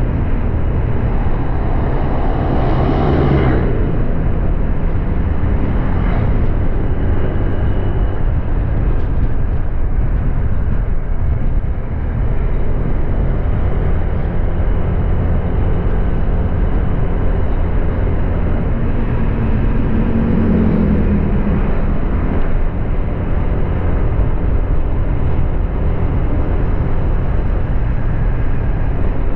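Honda Click 125i scooter's single-cylinder engine running steadily while riding, under a constant rush of road and wind noise. It swells briefly about three seconds in, and again more faintly around twenty seconds in.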